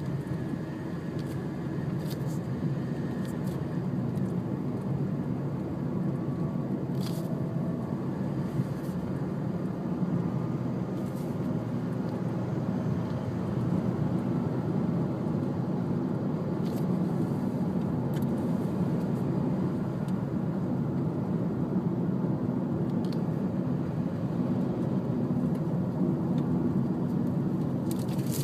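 Steady engine and road noise of a car driving on a highway, heard from inside the cabin, with a few faint ticks.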